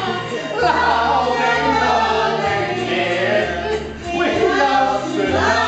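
Several cast voices singing and laughing together in rhythm over a musical accompaniment, with a bass line stepping from note to note about once a second.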